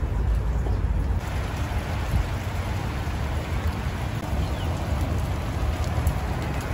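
Steady rain falling on garden leaves and soil, a continuous hiss with a low rumble underneath. The hiss of the rain grows brighter about a second in.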